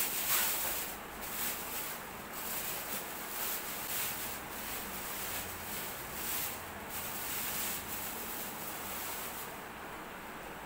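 Packaging rustling and rubbing as a heavy subwoofer is worked out of its cardboard box, in uneven swishes that settle into a steadier hiss near the end.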